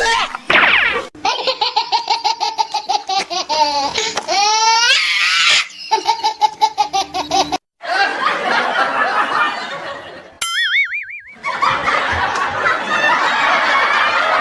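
Dubbed-in laugh-track effects: repeated bursts of rhythmic 'ha-ha' laughter, then a crowd laughing together. About ten seconds in there is a short warbling comic sound effect.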